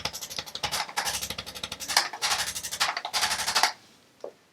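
Handheld chiropractic adjusting instrument working on the lower back, firing rapid taps, about a dozen a second, in short bursts; it stops near the end.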